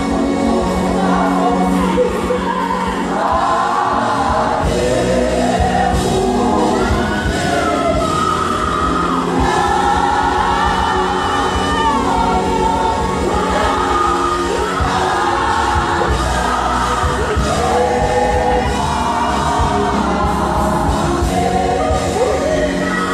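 Live gospel song: a choir of singers with a band, amplified through stage loudspeakers in a large hall.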